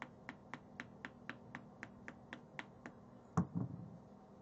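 Steady clicking, about four a second, from a tool working at a stuck screw on a carburetor, stopping near three seconds in, then a louder double knock.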